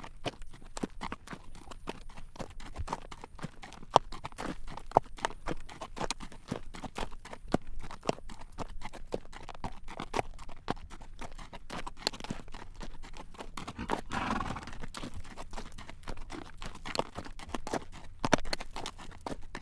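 Horse's hooves clacking on a paved road as it walks, pulling a carriage, in a quick, uneven run of sharp clip-clops. A brief rush of noise rises over the hoofbeats about two-thirds of the way through.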